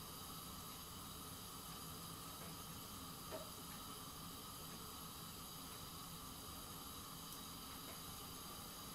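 Gas hob burner burning with a steady, quiet hiss. A faint tick about three seconds in.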